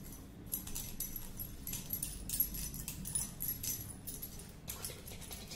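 Bangles on a woman's wrists jingling, about two or three times a second, as her hands stroke a baby's back and legs in an oil massage.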